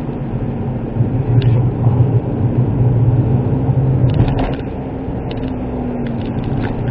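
Cabin noise of a Suzuki Wagon R (MH23S) kei car under way: the 660 cc three-cylinder engine and tyres make a steady low hum, louder from about a second in, with a few light ticks about four seconds in.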